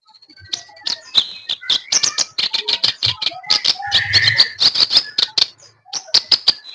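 Kerak basi, a reed warbler, singing a fast, continuous chattering song of rapid clicks mixed with short whistled notes, with a brief pause near the end.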